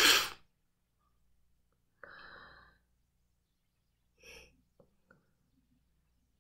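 A breath out, close to the microphone, at the very start, then near silence with a few faint short sounds about two and four seconds in.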